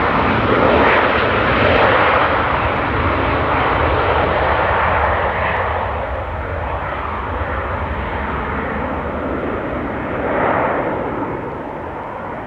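Private jet's engines running with a steady roar that slowly fades as the jet moves away down the runway, with a brief swell about ten seconds in.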